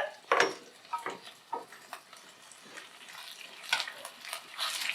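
Small pieces of meat frying in a hot pan, with a few sharp knocks of a utensil against the pan in the first second or two. The sizzle grows louder over the last couple of seconds.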